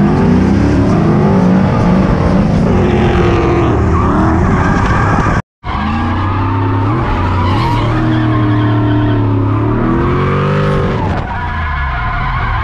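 Drift car engine revving up and down hard through slides, heard on board, with tyres skidding and squealing. It cuts out abruptly for about half a second a little before the middle, then comes back revving through another slide.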